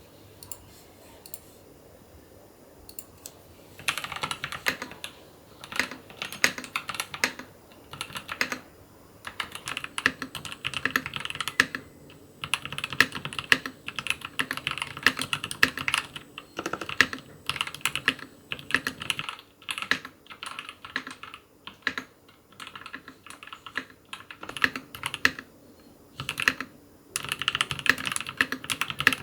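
Typing on a newly built KBDFans custom mechanical keyboard: a few scattered key presses, then from about four seconds in fast runs of key clacks in bursts with short pauses between them.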